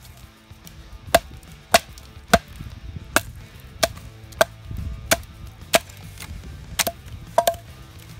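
Wooden baton striking the spine of a D2 steel bushcraft knife, driving the blade down through a split of chestnut wood. About ten sharp knocks come a little under two a second, with a quick double strike near the end.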